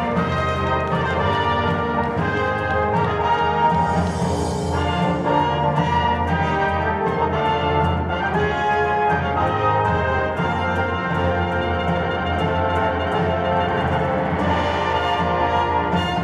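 Orchestral music with brass, playing steadily throughout.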